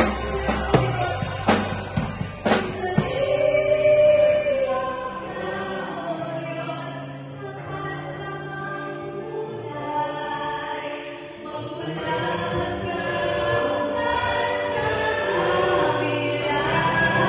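A choir singing a worship song with a live band of drum kit, electric guitars and keyboard. Drum hits sound in the first few seconds, then the choir's harmonies are held over the bass and guitars.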